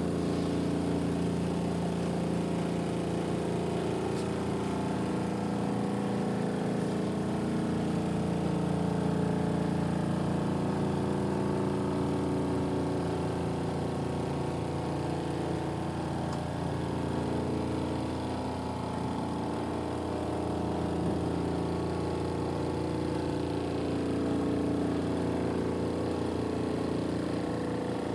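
Kuppet portable washing machine's motor running steadily, an even mechanical hum as the machine works through the end of its cycle.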